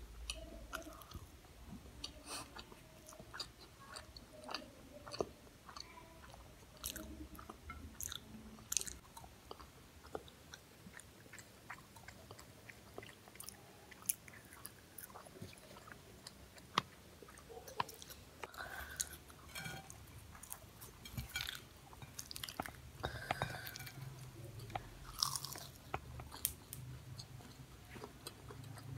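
A person biting and chewing imarti, a fried syrup-soaked sweet, close to the microphone. Many small, irregular clicks of mouth sounds.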